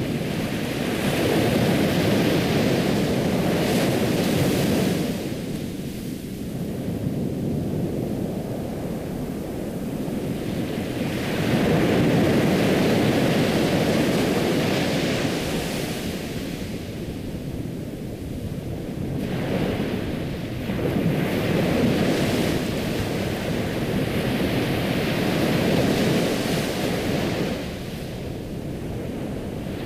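Ocean waves breaking and washing on a shore, a steady rush that surges and eases off every several seconds.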